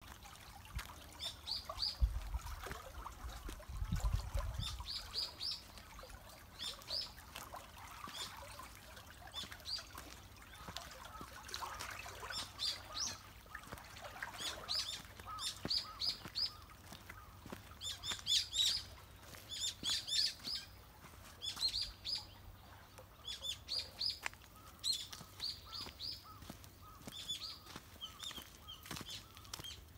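Small birds calling, with repeated groups of short, high chirps throughout, over the faint running of water in a channel. Two low thuds about two and four seconds in.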